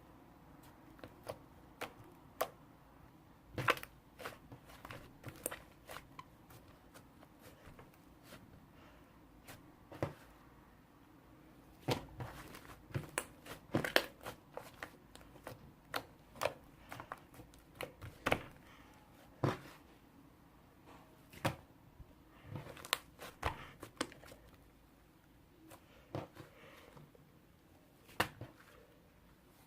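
Irregular sharp clicks and taps with some crinkling, in clusters with short gaps: close handling noise in a small room.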